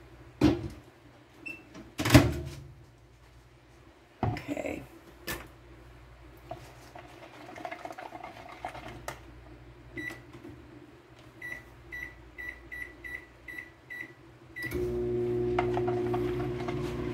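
Microwave oven heating white melt-and-pour soap base: a few knocks and clunks as it is loaded, then a run of short keypad beeps as the time is entered, and the oven starts with a steady hum about two and a half seconds before the end.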